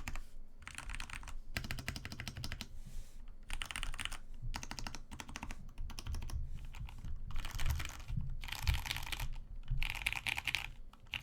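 Typing on an RK61 mechanical keyboard with lubed Cherry MX Brown switches, dampened with PE foam and tape and on a gummy O-ring mount: quick runs of keystrokes in bursts with short pauses between them.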